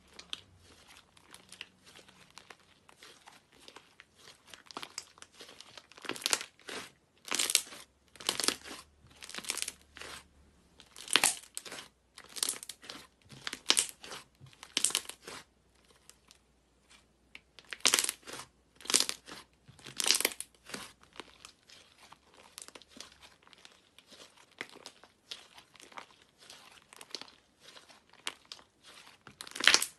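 Hands squeezing, folding and pulling apart thick white slime, giving an irregular run of crackling, crinkly pops. The crackles come in loud clusters through the middle, with a short lull a little past halfway and softer ones near the end.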